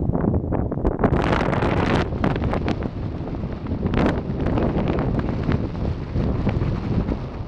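Wind buffeting the camera's microphone: a loud, gusty rumble with irregular crackles.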